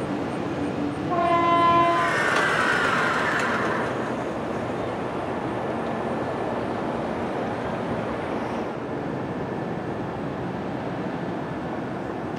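A horn sounds once, a single pitched blast of about a second. It is followed by a loud rush of noise that settles into a steady rumble.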